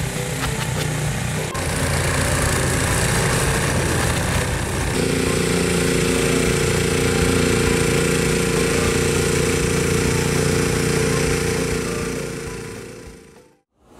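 An ATV with a Rammy front-mounted snowblower running steadily under load while it throws snow: a continuous engine drone with the rush of the blower. The note changes about five seconds in, and the sound fades out near the end.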